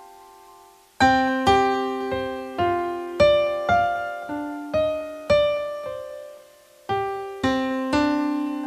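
Background piano music: a gentle melody of single struck notes, each ringing out and fading, with a short pause about a second in and another near the end.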